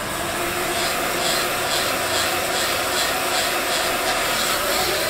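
Heat gun blowing steadily while heating vinyl graphic film to soften it, a steady rush of air with a faint motor whine.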